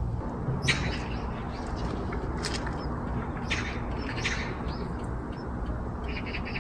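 Small wild birds chirping: short scattered high calls, then a quick run of repeated notes near the end, over a steady low background rumble.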